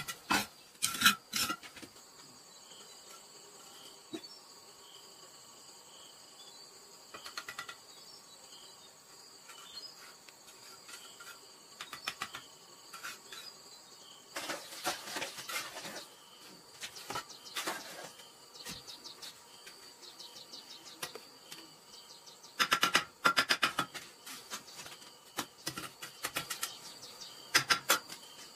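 Steel trowel scraping mortar and tapping bricks into place in short bursts of clicks and scrapes, loudest near the start and again about two-thirds through. Under it, a steady high-pitched drone of insects.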